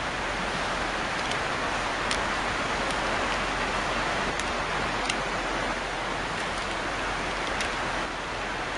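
A steady, even hiss, with a few faint light ticks scattered through it.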